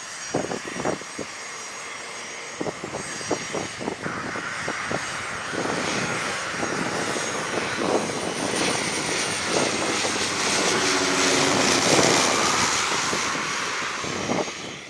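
de Havilland Canada DHC-6 Twin Otter's twin turboprop engines on approach to land, with propeller and engine noise swelling to a peak about twelve seconds in and then easing. A low propeller drone dips slightly in pitch as the aircraft passes, over a faint steady high whine.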